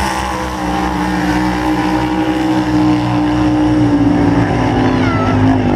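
Swamp buggy engines running hard while the buggies race through deep water. The engine note is steady and slowly falls in pitch, with the rushing hiss of thrown spray beneath it.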